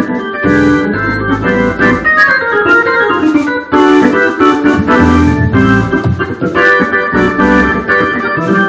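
Two-manual console organ played with both hands: full sustained chords over moving bass notes in rhythmic stabs, with a falling run of notes about two seconds in.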